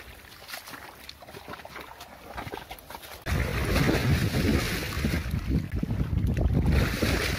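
Water buffaloes wading through mud, with faint squelches and small splashes. About three seconds in the sound jumps to loud wind buffeting the microphone over sloshing water as a cow wades through a river.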